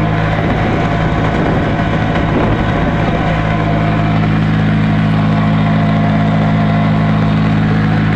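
Motor vehicle engine running steadily with a constant low hum while driving down a road, along with road and wind noise. A rushing noise briefly masks the engine note from about half a second to three seconds in.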